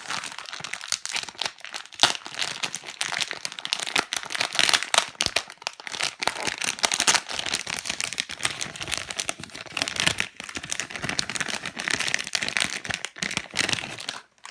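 Squishy's plastic packaging crinkling and rustling continuously as it is opened and the squishy pulled out, stopping suddenly near the end.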